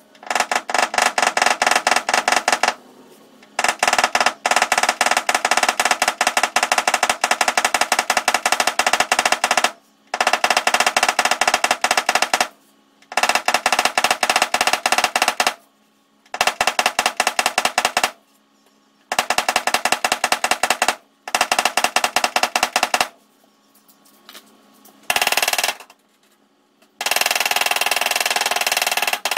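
Rapid light hammer taps on a car's aluminium bonnet from a dent repair hammer, in runs of several seconds with short pauses between them.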